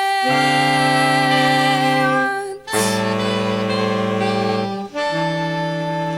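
Saxophone ensemble playing three long held chords, one after another, in an instrumental gap between sung lines.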